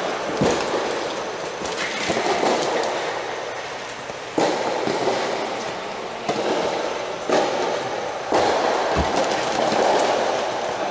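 Steady echoing background noise under an indoor soft tennis court dome, with several sharp separate pops of soft-tennis balls struck or bouncing on nearby courts and one dull thud near the end.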